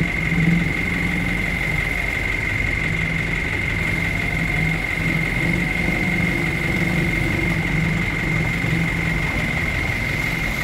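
Vehicle engines idling and running at low revs, a steady low hum, with a steady high-pitched whine underneath.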